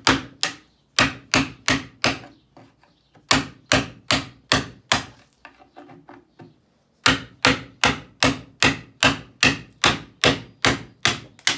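Hammer driving a 5-in-1 tool like a chisel to knock a broken piece off a wooden nightstand: rapid sharp blows, about three a second, in three runs with a short pause near the middle.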